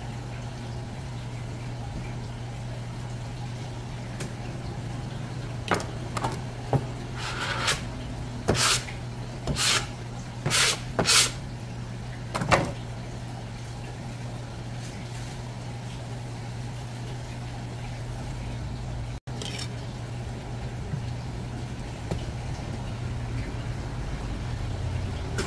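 Running water in several short spurts, over a steady low hum.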